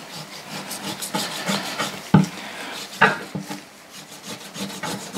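Santoku knife sawing through the rind of skin-on pork belly on a bamboo cutting board, cutting the skin away from the fat, with rubbing, scraping strokes. The blade knocks sharply on the board twice, about a second apart, near the middle.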